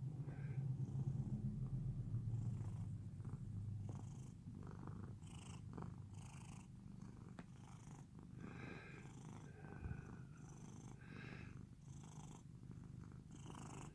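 A cat purring steadily close up, loudest in the first few seconds. Short breathy hisses at higher pitch come and go on top of the purr.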